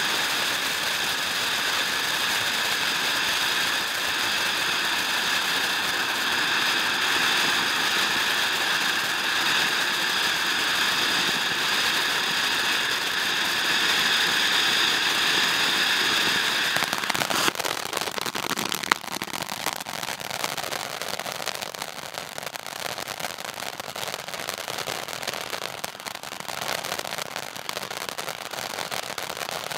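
Ground fountain firework spraying: a steady loud hiss with a high whistling tone for most of its first half, then changing, a little past halfway, to a dense crackling with fewer whistle tones.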